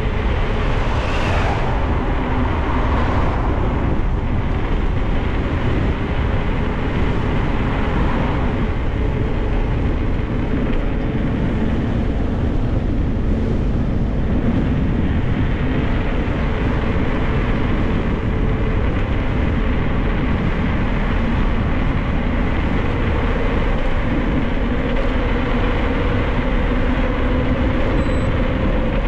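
Mountain bike ride: steady rushing wind and rolling noise on the microphone, with a faint steady hum running through it.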